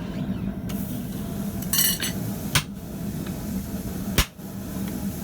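Three separate hammer blows on hot steel at the anvil, over a steady low hum: an attempt to set off a steam explosion on wetted steel to knock off scale, with no burst of steam heard.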